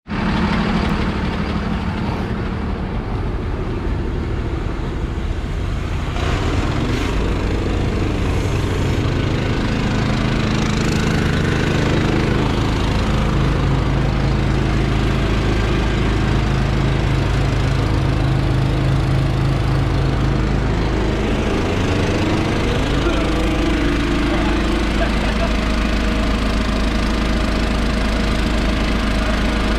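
Mobile service truck's engine running steadily, its pitch shifting a few times.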